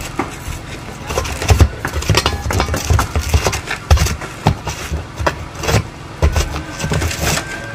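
Roof tear-off: irregular knocks, scrapes and thuds as workers strip old shingles, with a low rumble underneath.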